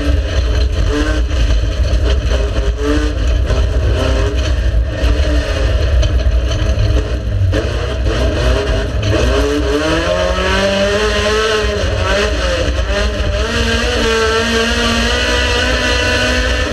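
Racing car engine at high revs, its pitch falling about midway, then climbing again as it accelerates, over a heavy low rumble.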